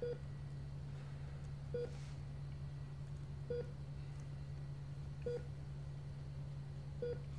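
Short electronic beeps, evenly spaced about every second and three quarters (five in all), over a steady low electrical hum: a machine's monitor tone.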